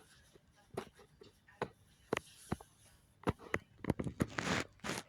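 Irregular sharp taps and clicks, closer together near the end, with a brief rustling hiss about four and a half seconds in.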